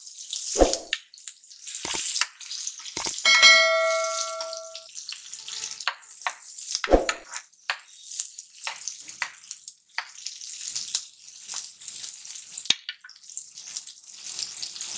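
Chopped onions sizzling and crackling in hot oil and butter in a nonstick pan, with the knocks and scrapes of a silicone spatula stirring them. A ringing ding sounds about three seconds in, the loudest moment, and fades over a second or so.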